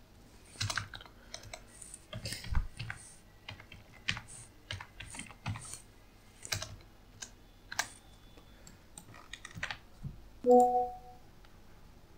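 Computer keyboard typing, irregular keystrokes and clicks. About ten seconds in comes a short pitched chime, the loudest sound here: a WhatsApp desktop message notification.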